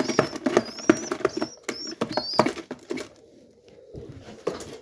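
Young pigeon squabs in the nest give short, high squeaks among quick clicks and rustling. The squeaks and clicks die away after about two and a half seconds.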